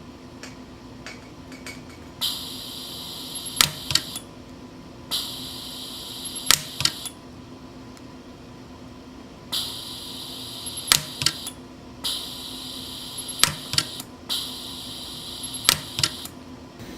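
Orion pulse arc micro welder firing on a gold crown, adding metal to a contact: sharp snaps of single weld pulses in five groups, each group a couple of seconds long and joined by a high steady whine that starts and stops with it, over a low steady hum.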